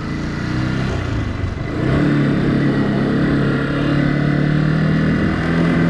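Yamaha YZF-R125's 125 cc single-cylinder four-stroke engine running at low revs, then about two seconds in the throttle opens and it pulls steadily, its pitch rising slowly.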